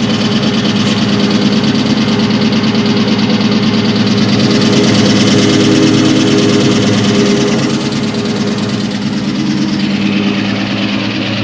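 2003 SVT Cobra's supercharged 4.6-litre V8 running near idle with a fast, steady knocking of piston slap, the sign of badly scored pistons. It runs a little louder for a few seconds mid-way.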